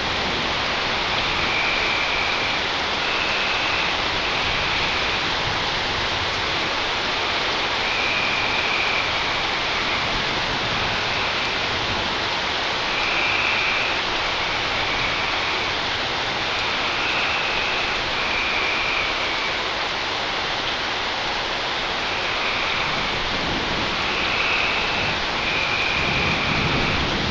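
Steady rain from a night thunderstorm. Short high-pitched pulses recur every second or two over it, and a faint low rumble of distant thunder comes in near the end.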